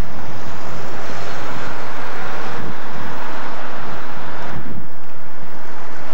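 City street noise of passing traffic, with wind buffeting the camcorder's microphone as a dense, steady rush. The sound changes abruptly about five seconds in.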